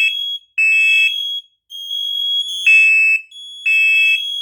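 Smoke alarms sounding the three-beep temporal alarm pattern during a smoke test. A second alarm sounds out of step with a slightly higher tone, filling the pauses between the beeps.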